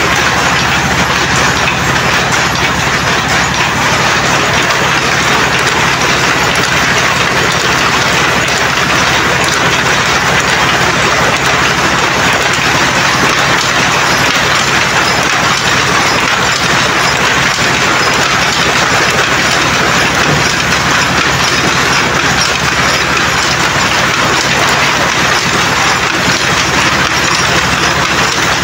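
Power looms weaving saree cloth, running continuously. They make a loud, steady mechanical clatter over a low motor hum.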